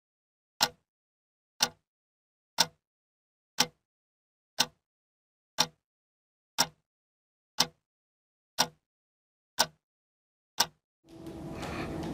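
A clock ticking, one sharp tick each second, eleven ticks with dead silence between them. About a second before the end, a steady background hum with room noise fades in.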